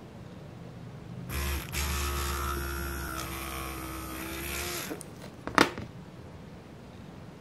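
Small hand-held electric mini drill runs for about three and a half seconds with a steady whine, drilling into a tiny plastic gear and wheel hub, starting and stopping abruptly. A single sharp click follows about a second later.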